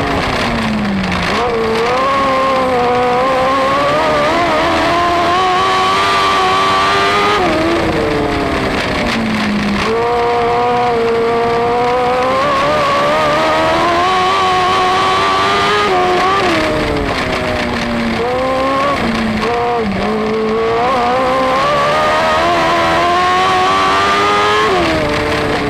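Dwarf car's motorcycle engine at racing speed, heard on board: its pitch climbs for several seconds at a time, then drops sharply as the driver lifts for the turns, repeatedly around the track.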